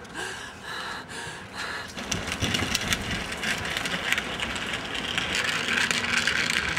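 Wheeled suitcase rolling over pavement, its wheels rattling in a stream of small clicks, over general street noise.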